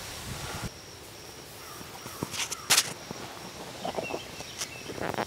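Outdoor ambience: scattered rustles and clicks, the sharpest a pair about two and a half seconds in, and a few short bird chirps about four seconds in, over a faint, high, evenly pulsing insect buzz.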